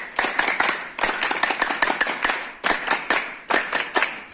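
A group of scouts clapping in unison after a scout salute, in repeated rounds of fast claps each about a second and a half long, with a brief break between rounds.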